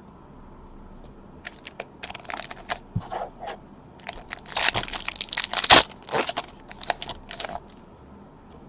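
A trading-card pack's wrapper being torn open and crinkled: a run of irregular crackles and rustles, loudest about halfway through.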